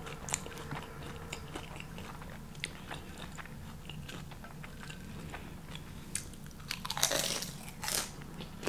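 Crunchy eating of a crisp fried avocado egg roll: the wrapper crackling in small clicks as it is broken and chewed, with a few louder mouth sounds near the end.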